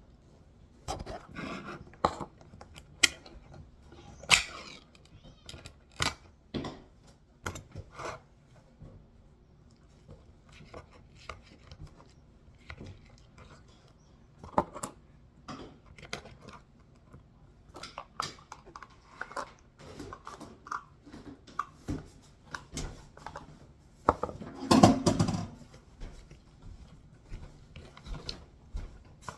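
Pet food being prepared by hand: a string of scattered clicks, taps and clatters from containers, lids and bowls being handled, with a louder clatter about 25 seconds in.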